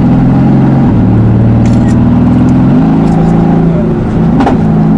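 The tuned Mercedes-AMG GT S's twin-turbo 4.0-litre V8 running loud and steady under way, its pitch stepping a couple of times. A single sharp click comes about four and a half seconds in.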